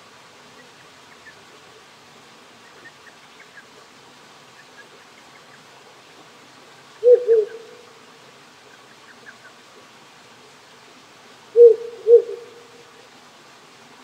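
Ural owl hooting: a low two-note hoot about halfway through, then a second two-note hoot with a trailing tail near the end. Underneath runs the steady hiss of a small stream.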